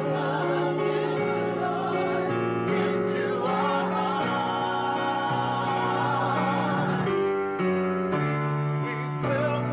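Gospel vocal group singing in harmony, holding sustained chords with vibrato and moving to a new chord every second or two.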